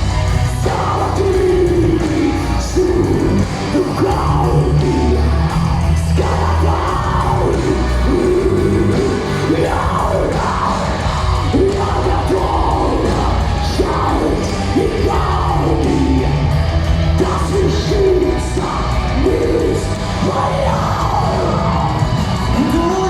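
Power metal band playing live, with a singer's sustained vocal line over distorted guitars, bass and drums.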